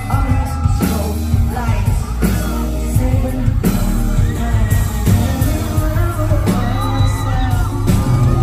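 Live amplified pop music heard from within a concert audience: a singer's voice over the band, with heavy bass and regular drum hits.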